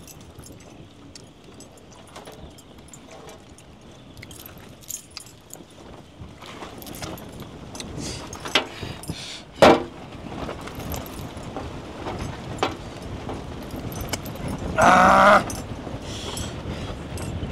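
Metal bracelets, rings and chains jangling and clinking, with light taps on a metal tray, as hands pick apart a cooked fish. A sharp knock comes about ten seconds in, and a short pitched call lasting about a second comes near the end, louder than the rest.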